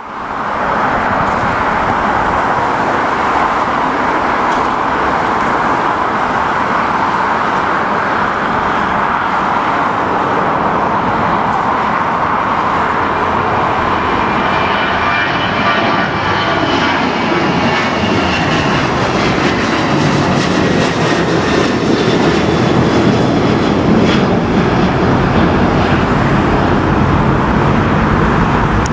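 Ryanair Boeing 737-800's two CFM56 turbofan engines at takeoff power, a loud continuous rush as the jet rolls and climbs out. About halfway through, sweeping pitch bands pass as it goes overhead, and the sound turns deeper as the jet climbs away.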